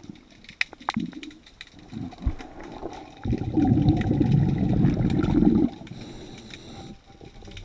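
Underwater, a diver exhaling through a regulator: a low bubbling rumble that starts abruptly about three seconds in and cuts off about two and a half seconds later. Faint clicks and knocks are scattered around it.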